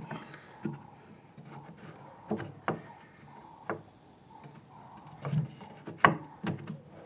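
Wooden cabinet parts being handled and fitted as a drawer guide rail is glued in: irregular light wooden knocks and clicks, about seven in all, with faint rubbing between them.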